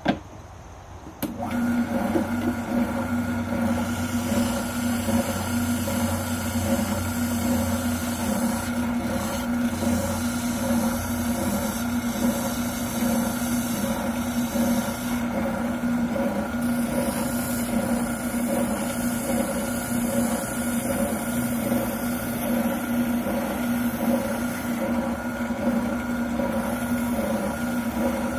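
A brief knock, then about a second in a Wilton oscillating sander is switched on and runs steadily with an even hum, while a shotgun buttplate is sanded against it, adding a shifting hiss.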